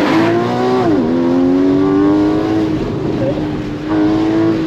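Porsche 981 Cayman GTS's 3.4-litre flat-six accelerating hard, its pitch rising, then dropping sharply on an upshift about a second in before climbing again in the next gear.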